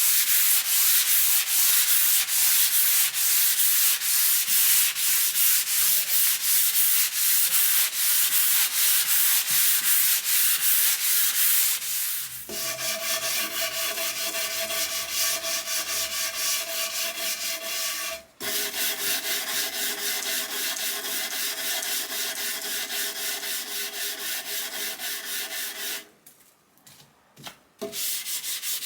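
Wood of a mid-century G Plan wardrobe being sanded in quick, rhythmic back-and-forth strokes. About twelve seconds in the sound changes and a steady tone runs beneath the strokes. The sanding stops for about two seconds near the end, then starts again.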